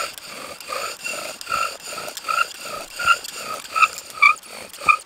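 Bow drill spindle spinning in the notch of a wooden hearth board as the bow is sawed back and forth, the wood giving a squeaky rub on each stroke, about three every two seconds and growing louder near the end.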